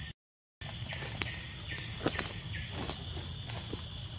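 Steady high-pitched chorus of insects, cut off for half a second near the start. Over it come scattered light clicks and rustles in dry leaf litter.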